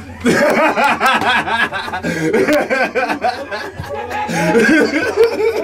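Men laughing hard after a joke, in a run of short repeated bursts.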